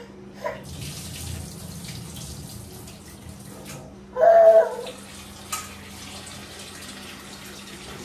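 Kitchen tap running into a steel bowl as food is rinsed in it at the sink, the water loudest in the first few seconds. About four seconds in there is a brief, loud vocal sound.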